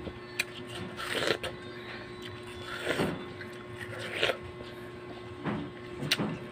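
Biting into and chewing a slice of watermelon close to the microphone: a handful of separate bites and mouth sounds at irregular intervals, over a steady hum.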